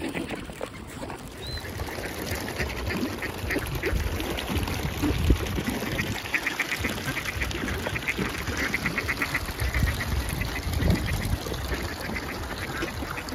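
Mallard ducks quacking among a feeding flock of swans and ducks, with two rapid runs of short quacks, about eight a second, and scattered single calls over a steady low rumble.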